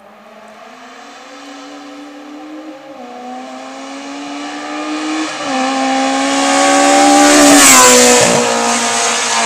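Hill-climb race car engine at full throttle, coming up the road and rising in pitch through the gears with two upshifts, growing steadily louder. It passes close about eight seconds in, its pitch falling sharply as it goes by.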